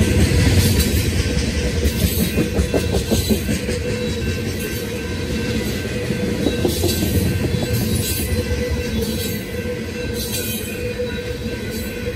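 Freight train of tank cars rolling past: a steady rumble of steel wheels on rail with thin, steady squealing tones and scattered clicks of wheels crossing rail joints, a little louder in the first few seconds.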